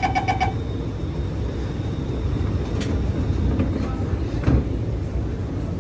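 SMRT R151 metro train pulling away, heard from inside the car: the last door-closing warning beeps stop about half a second in, then a steady low rumble with two short creaks, about three and four and a half seconds in.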